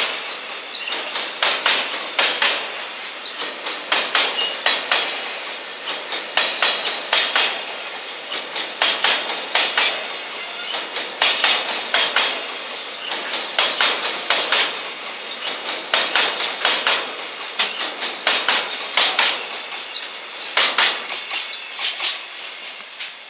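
Container wagons of a freight train rolling past, their wheels clacking over rail joints in repeated clusters of sharp beats about every second, over a continuous rolling rumble.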